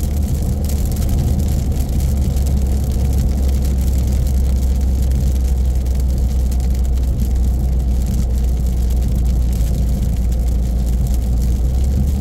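A car driving on a wet road, heard inside the cabin: a steady low rumble of engine and road noise with an even hiss of tyres and rain over it.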